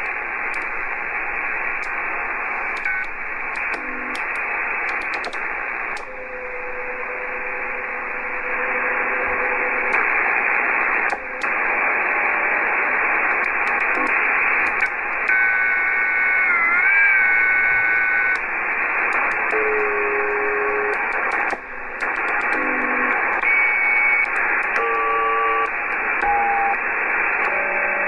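Icom IC-M700 HF SSB receiver playing band static through its speaker as it is tuned across the 40 m and 20 m amateur bands. Steady hiss with frequent clicks, and short whistling tones from signals that drift in and out at different pitches, one wavering for a few seconds about halfway through.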